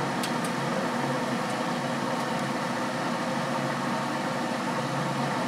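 Steady hum of a Traeger pellet smoker running, its fan turning over, with a couple of faint clicks just after the start.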